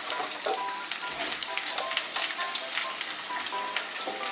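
Cut spiny gourd (kakrol) pieces sizzling in hot oil in a non-stick kadai: a steady, dense crackle of fine pops just after the pieces go into the oil. A light background melody with short repeated notes plays underneath.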